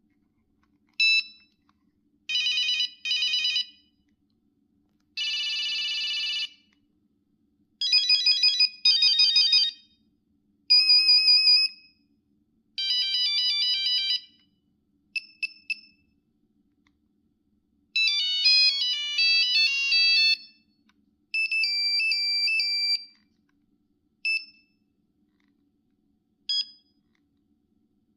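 Nokia 5110 ringtones played one after another: short, high beeping melodies and rapid trills from the phone's monophonic tone generator, about a dozen brief snatches, each cut off by a moment of silence before the next begins.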